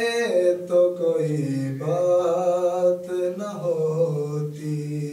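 A man singing an Urdu naat, drawing out long, gliding held notes of the closing line.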